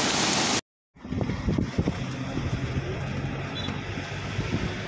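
Rushing of a flooded river that cuts off abruptly about half a second in. After a moment of silence, a vehicle's engine runs steadily as it drives, with wind buffeting the microphone in irregular low thumps.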